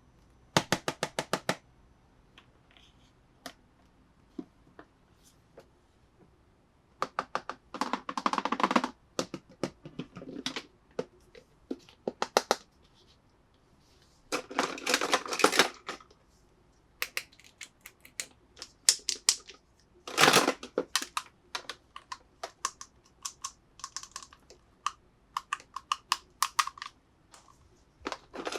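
Small hard plastic toy pieces clicking and rattling as they are handled, in short bursts of quick clicks with pauses between.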